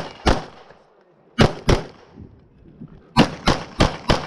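Glock 34 9mm pistol firing about eight shots: quick pairs about a third of a second apart with short pauses between, then four shots in quick succession near the end.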